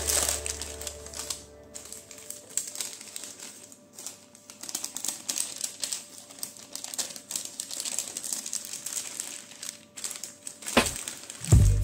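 Baking parchment crinkling and rustling under the hands in quick, irregular crackles as it is smoothed over and peeled off a baked chocolate sponge sheet. Background music fades out in the first two seconds and comes back in near the end.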